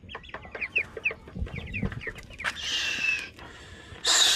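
Broiler chicks peeping: many short, high, falling peeps, several a second. About two and a half seconds in and again near the end, a louder harsh rushing noise comes over them.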